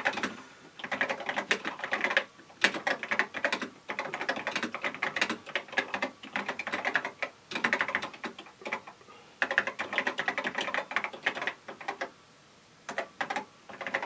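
Typing on a TRS-80 Model III keyboard: quick runs of key clicks broken by short pauses, with a lull of about a second and a half near the end.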